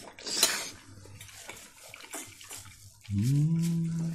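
A person's low, closed-mouth 'mmm' hum that rises briefly and then holds a steady pitch for about a second near the end. A brief noisy sound comes about half a second in.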